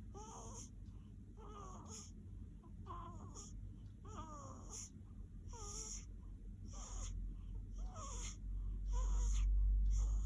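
Sleeping baby snoring with a squeaky, wheezy whistle on each breath, roughly one a second. A low rumble swells near the end.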